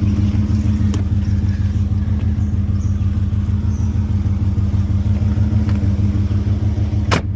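Holden Commodore VP SS's 5-litre V8 idling steadily, with a sharp click near the end.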